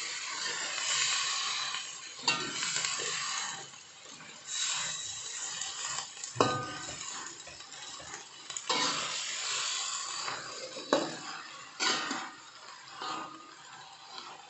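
Water spinach sizzling and frying in a wok while a metal spatula stirs and scrapes it, with sharp clinks of the spatula against the wok a few times.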